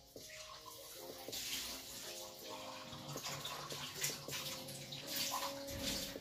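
Running water, a steady hiss that swells and eases, over faint background music.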